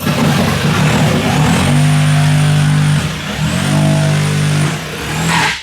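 Electric power tool running, its motor whine rising to full speed twice, dipping briefly in between.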